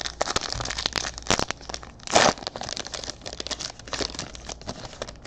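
Foil trading-card pack wrapper crinkling as it is torn open and handled, a dense run of crackles, loudest about two seconds in.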